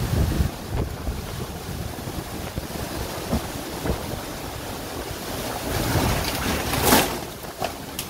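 Derecho winds and driving rain, the gusts buffeting the phone's microphone in low rumbles. A sudden sharp crack about seven seconds in, with a smaller one just after.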